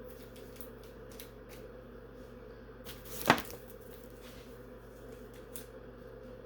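Light handling noises, soft rustles and small ticks, with one sharp click about three seconds in, over a steady low hum.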